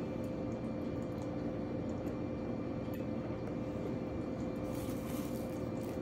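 Cuisinart DCC-450BK drip coffee maker brewing, a steady hiss and bubbling from its heating water, with a steady hum underneath; the hiss grows brighter about five seconds in.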